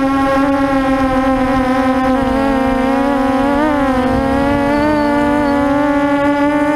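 QAV400 quadcopter's motors and propellers whining steadily, the pitch dipping and wavering about two to four seconds in as the throttle changes, over a low rumble.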